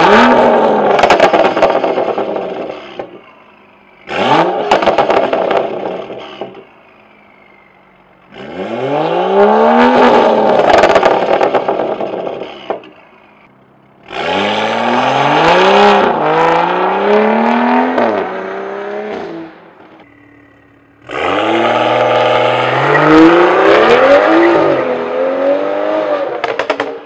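BMW N55 turbocharged inline-six breathing through an AWE Tuning Touring Edition axle-back exhaust with performance mid pipe and catless downpipe, accelerating hard five times. Each pull rises in pitch; in the longer pulls near the middle and end the pitch drops and climbs again at each gear change, and short quiet gaps separate the pulls.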